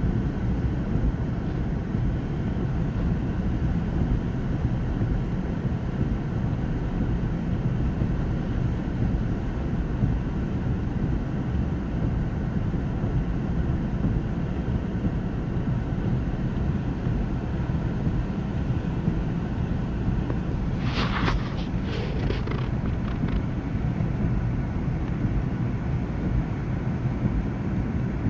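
Steady low rumble of a car heard from inside its cabin, moving slowly on a rain-soaked freeway. A few brief sharp clicks come about three-quarters of the way through.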